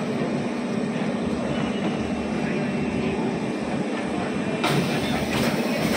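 Bambooless agarbatti making machine running: a steady mechanical hum and rattle from its conveyor and feed mechanism. A bright hissing noise comes in near the end.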